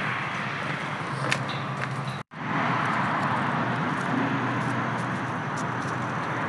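Steady outdoor background noise with a low hum under it and a few faint ticks. It drops out for an instant about two seconds in.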